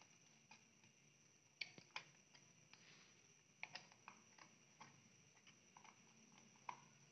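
Near silence broken by faint, irregular small clicks and ticks of a screwdriver and wire ends working the terminal block of a plastic automatic pump controller. The sharpest clicks come about one and a half to two seconds in.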